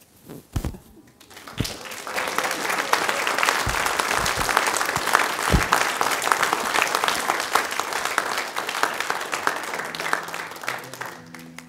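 Congregation applauding: clapping starts about a second and a half in, builds to a full, dense round and fades near the end.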